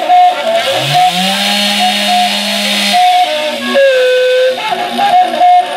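Two-stroke Stihl chainsaw revved up, its engine pitch climbing to full throttle about a second in, held there, then dropping back near the middle. Sustained pitched notes that step up and down in pitch sound over it.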